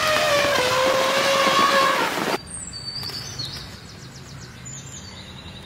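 An Asian elephant trumpets loudly in one long, steady blaring call of about two seconds that cuts off abruptly. After it comes quieter forest ambience with small birds chirping in high, repeated notes.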